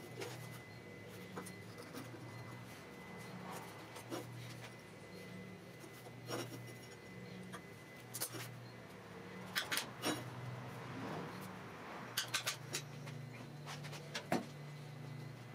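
Scattered light taps, clicks and scrapes of a steel bar and small tools handled on a steel-topped workbench, over a low steady hum.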